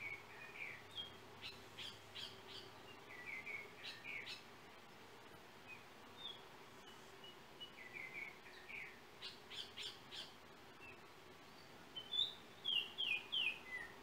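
Yellow oriole singing: phrases of short clear whistled notes, many sliding downward, broken by brief scratchy chatter, with the loudest run of downslurred whistles near the end.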